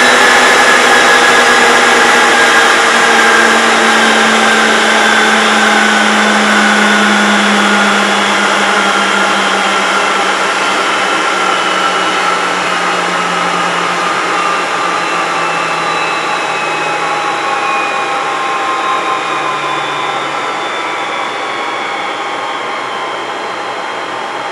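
IBM System x3250 server's cooling fans running fast at power-on during the BIOS self-test: a loud rushing whine whose tones slowly fall in pitch while the noise gradually gets quieter as the fans spin down.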